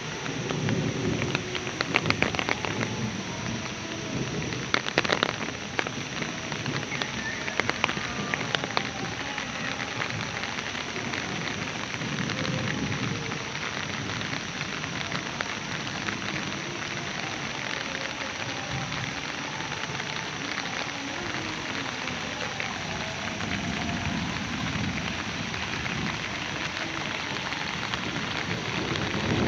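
Steady heavy rain pouring, with sharp drops tapping close by during the first several seconds and low rumbles of thunder now and then.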